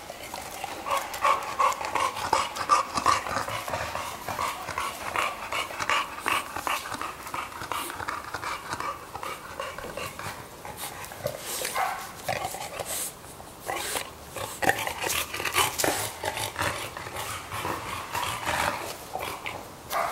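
Two dogs close up, panting with short whines and snuffles that come unevenly.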